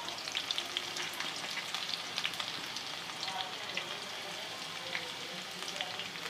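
Chopped garlic and green chillies frying in hot ghee in a kadhai for a tadka: a steady sizzle with many small crackles.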